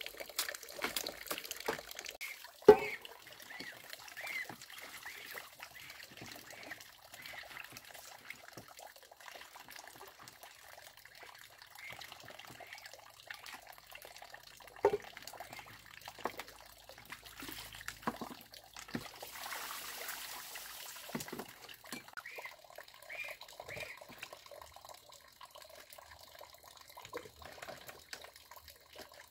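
Water trickling and splashing, with scattered small clicks and knocks and two sharp knocks, about three and about fifteen seconds in.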